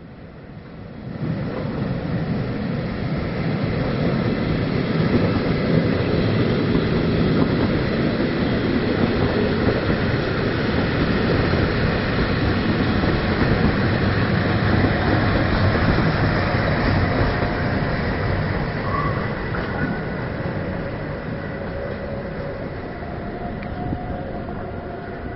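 Matterhorn Gotthard Bahn narrow-gauge train running past on the rails. The noise rises sharply about a second in, stays loud, then slowly eases off over the last several seconds.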